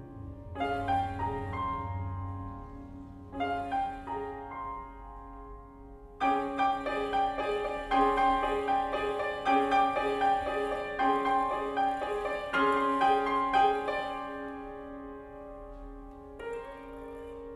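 Grand piano playing ringing, bell-like repeated notes and chords that imitate carillons, in short phrases with pauses. About six seconds in, a louder, denser passage of repeated chords begins. It dies away near the end.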